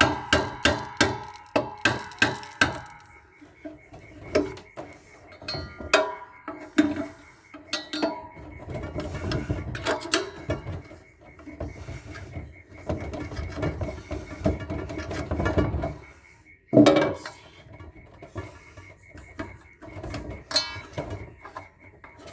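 Hand tools working on the metal casing and parts of a solar inverter being dismantled. A quick run of clicks comes first, then stretches of scraping and clanking, with one loud bang a little before the end.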